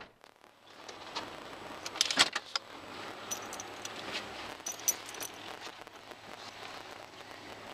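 Light metallic jingling and clicking, with some rustling handling noise. It is loudest about two seconds in, and small high ticks come and go over the next few seconds.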